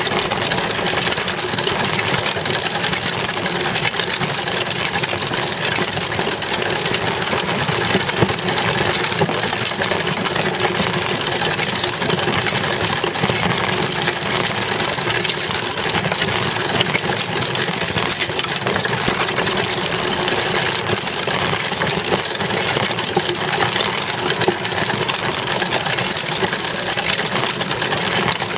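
Child's bicycle rolling fast over asphalt, heard close up: a loud, steady rolling rumble and clatter from the small tyre and frame.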